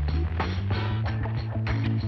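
Background music with a steady beat: plucked notes and strong sustained bass tones.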